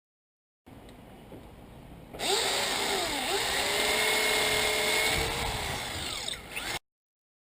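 Power drill running in a long burst, its motor pitch dipping and rising as the trigger is eased and squeezed. It starts about two seconds in and cuts off sharply near the end.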